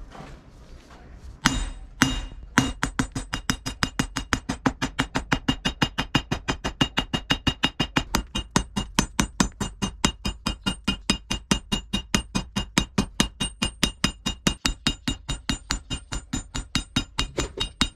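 Hand hammer striking red-hot leaf-spring steel on an anvil, forging a knife blade: a few scattered blows, then a steady rhythm of about four blows a second, each followed by a high metallic anvil ring.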